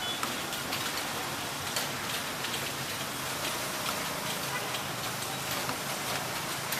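Steady rain falling, an even hiss with many separate drops ticking sharply on a hard surface.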